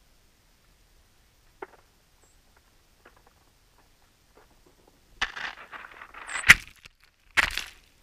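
Small songbirds scrabbling and pecking at sunflower seeds in crusted snow right against the camera housing: scratchy crunching in two bursts in the second half, with a sharp tap on the housing between them.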